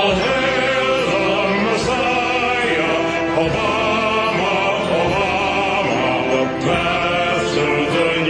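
Choir singing a solemn, hymn-like anthem in long held notes that waver slightly.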